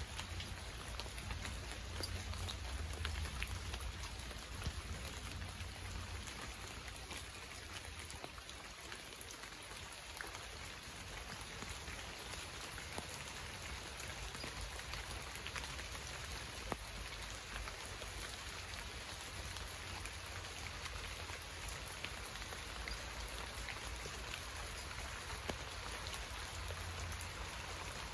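Steady rain falling, with many separate drop hits ticking through it and a low rumble underneath.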